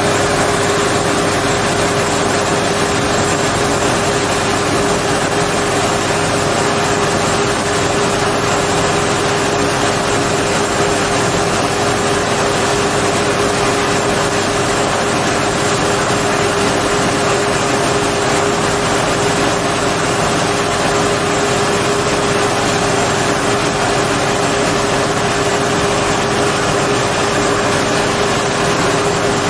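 Claas Lexion 750 combine harvester running steadily while unloading grain through its auger spout into a trailer. The engine and auger make a constant drone with a steady hum, over the hiss of grain pouring.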